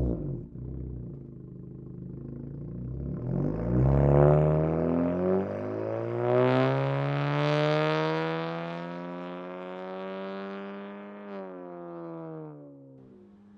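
Honda Civic Sport hatchback's naturally aspirated 2.0-litre four-cylinder through a muffler-less REMARK Link Loop stainless catback exhaust: the revs drop back to idle, then the car pulls away about three seconds in with the pitch rising under acceleration. Its sound fades steadily as it drives off, the pitch easing off near the end.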